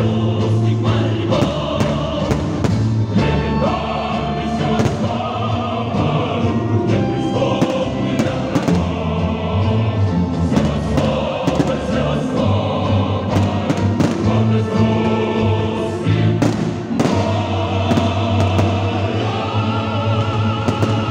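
Loud choral music with many firework bursts banging and crackling over it throughout.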